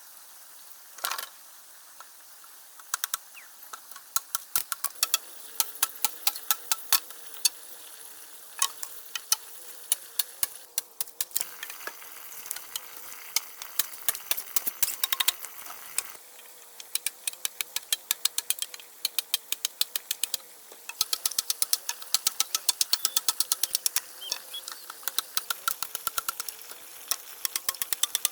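Small hand hoe chopping into hard, dry earth: runs of quick, sharp strikes and scrapes with short pauses between.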